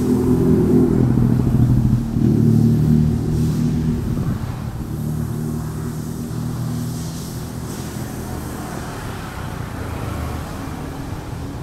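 A motor vehicle's engine running close by, loudest over the first few seconds and then fading steadily as it moves away.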